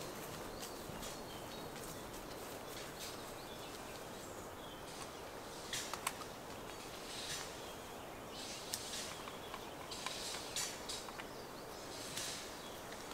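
Quiet outdoor ambience: a steady hiss with scattered short, high chirps, and a couple of sharp clicks about six seconds in.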